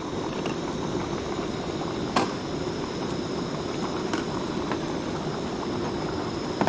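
Steady rushing water noise, with a single short click about two seconds in.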